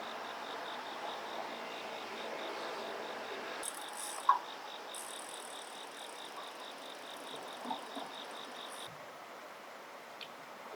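Insects singing: a steady pulsed chirp at about four or five pulses a second, joined partway through by a higher continuous buzz. Both stop suddenly near the end. A single short, sharp call about four seconds in is the loudest sound.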